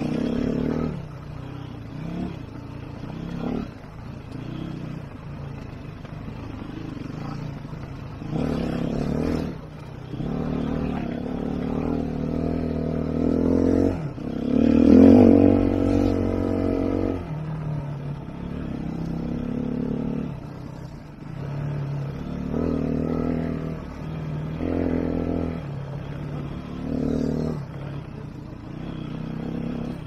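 A 2011 Sherco 3.0i F four-stroke, single-cylinder enduro motorcycle is being ridden, its engine note rising and falling as the throttle is opened and closed again and again. The loudest surge comes about halfway through.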